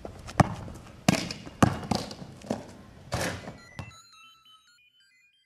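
Basketball thuds on a hard outdoor court: a sharp hit about half a second in as the shot reaches the hoop, then several more thuds over the next three seconds. The sound fades out about four seconds in.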